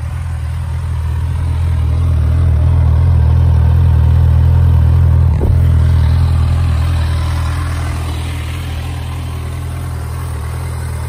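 Suzuki GSX650F inline-four engine idling steadily. It grows louder for a few seconds and then eases off, with a brief knock about five seconds in.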